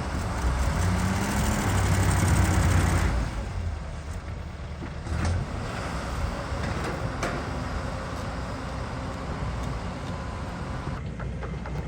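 Excavator's diesel engine running hard, its pitch rising and falling for about three seconds, then dropping back to a lower steady run. A few short knocks sound over it.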